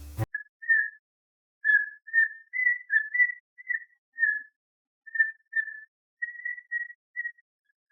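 Whistling: a slow run of about fifteen short, clear notes at nearly the same pitch, stepping slightly up and down with silent gaps between them, like a simple tune.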